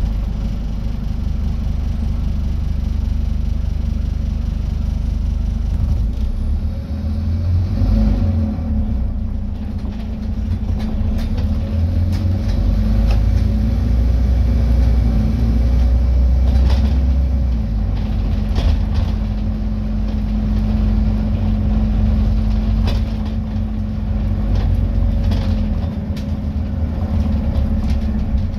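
Scania N230UD double-decker bus heard from inside the passenger saloon while on the move: its diesel engine rumbles steadily, rising and easing off several times as the bus pulls and slows. A steady whine runs through the middle stretch, with scattered clicks and rattles.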